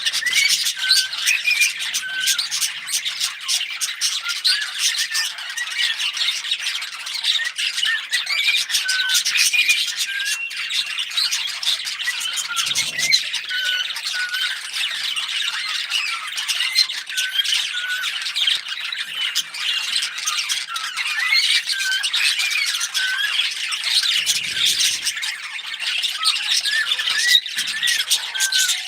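Small pet parrots, budgies and cockatiels, chirping and chattering without a break: a dense mix of short whistled notes, squawks and clicks.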